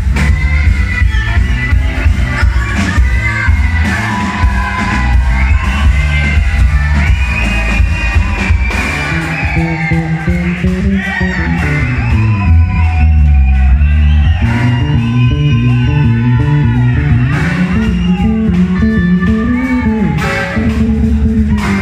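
Live rock band playing loud: saxophone and electric guitar over bass guitar and drums.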